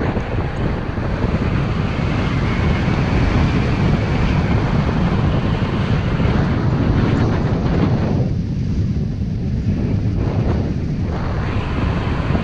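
Strong wind blowing across the microphone: a loud, rumbling rush that gusts unevenly and eases briefly twice near the end.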